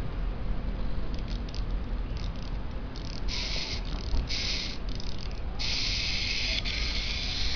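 Clockwork wind-up motor of a small plastic toy helicopter whirring, first in a few short bursts and then steadily for the last two seconds.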